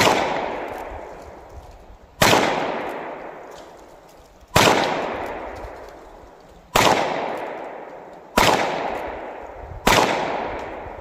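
Six shots from a Cimarron Frontier single-action revolver in .45 Colt, firing 250-grain full metal case flat-nose rounds one-handed. The shots come one to two and a half seconds apart, each a sharp crack followed by a long fading echo.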